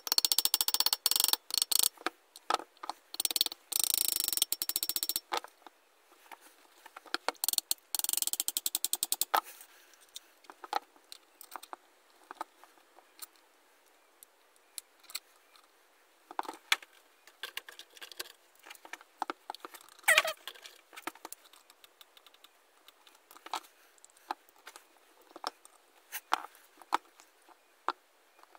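Brisk, rapid scraping strokes in two bursts against the metal of a restored hand drill, the first lasting about five seconds and the second shorter, about eight seconds in. Scattered light clicks and taps of small metal parts follow as the drill's handle and chuck are fitted.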